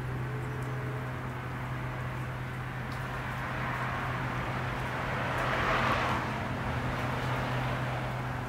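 Outdoor background with a steady low hum and a vehicle passing, its rushing noise swelling to a peak about six seconds in, then fading.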